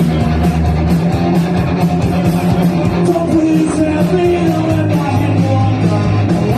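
Live rock band playing loud, with sustained bass and guitar under a steady fast beat of drum and cymbal hits.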